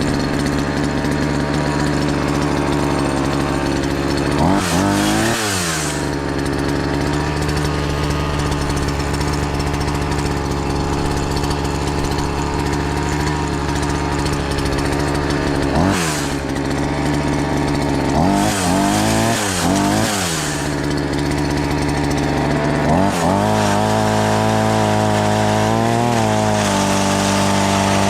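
Shindaiwa 280TS two-stroke chainsaw running hard, its engine speed dipping and climbing back several times.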